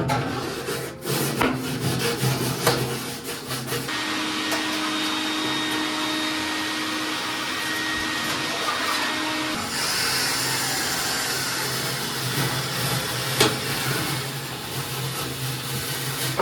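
Vacuum cleaner running steadily, sucking lint out of the inside of an electric dryer. Its sound changes about four seconds in and again about ten seconds in as the nozzle moves.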